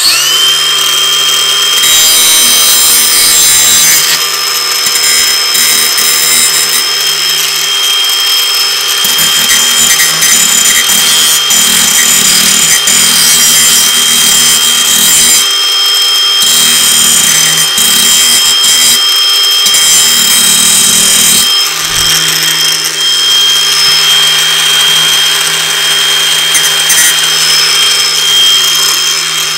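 Ryobi cordless angle grinder switched on, its motor whine coming up to speed right at the start, then grinding the cutting edge of a steel lawn mower blade to sharpen it. The grinding noise strengthens and eases every few seconds as the disc works along the edge, and is lighter near the end while the motor keeps running.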